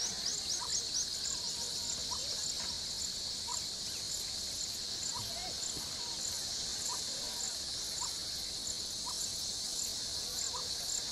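Steady high-pitched drone of insects, with short rising chirps repeating about once a second.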